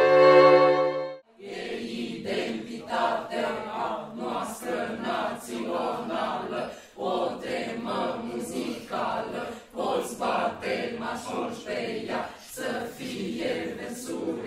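A bowed-string chord holds briefly and cuts off about a second in. A small choir of men and women then sings words together, phrase by phrase with short breaks.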